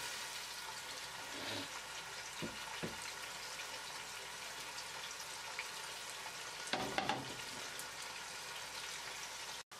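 Chopped onions sizzling steadily in hot oil in a pot as they fry toward brown, with a few short knocks, the loudest about seven seconds in.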